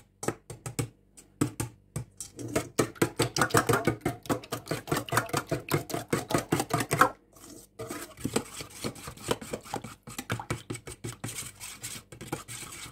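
Metal spoon beating eggs and mayonnaise into a batter in a stainless steel bowl: rapid clinking and scraping against the bowl, several strokes a second, with a short pause about seven seconds in.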